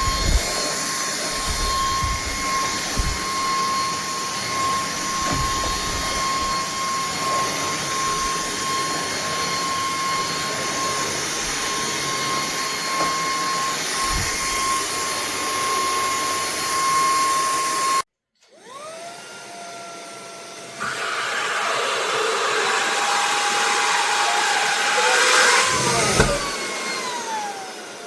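Linkifly A12 cordless stick vacuum running, a steady high motor whine over the rush of suction. About two-thirds of the way in it cuts off abruptly. It comes back quieter with the whine sliding in pitch, then louder again with a wavering whine.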